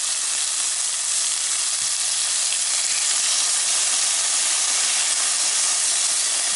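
Thin slices of streaky pork fat sizzling steadily in a non-stick frying pan with no oil added, rendering in their own fat. A fork turns the slices over.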